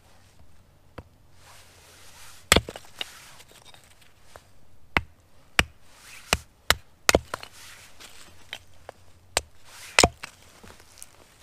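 Small kindling hatchet chopping firewood into kindling on a wooden chopping block: about a dozen sharp strikes at uneven intervals, the loudest a little over two seconds in and near the end.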